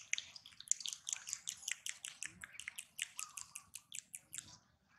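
A rapid, even series of short, high chirps, about five or six a second, stopping shortly before the end.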